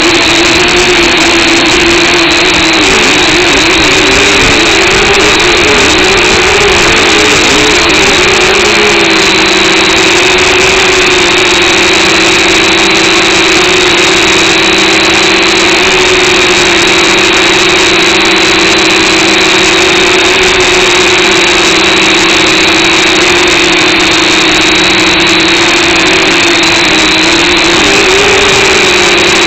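Small camera drone's propellers and motors whining steadily while it flies. The pitch wavers for several seconds early on and again near the end as the motors speed up and slow down to manoeuvre.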